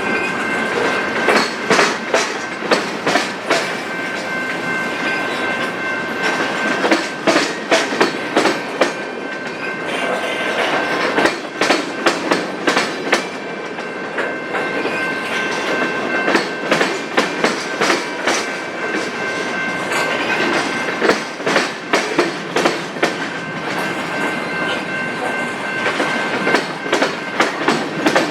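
Freight train cars rolling past, their wheels clicking in quick clusters over the rail joints above a steady rumble. A thin, steady high tone runs underneath throughout.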